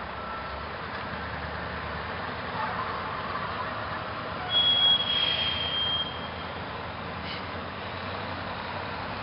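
City street traffic noise, a steady hum of passing vehicles. In the middle, a single high thin tone sounds for about a second and a half, falling slightly in pitch.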